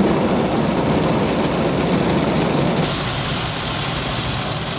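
Automatic drive-through car wash spraying water over the car, heard from inside the cabin: a steady rushing noise that turns thinner and hissier about three seconds in.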